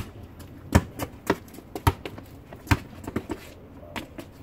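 Basketball being dribbled hard on an asphalt driveway: a run of sharp bounces, roughly one or two a second, somewhat uneven as the player works toward the hoop.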